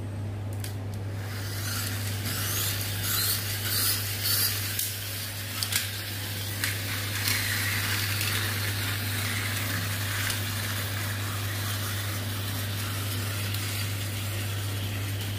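Two pull-back toy battle cars: first a run of short rasps, about two a second, as their friction motors are wound by pulling them back across the tile, then a steady whirring as the released motors spin and the cars push against each other. A steady low hum runs underneath.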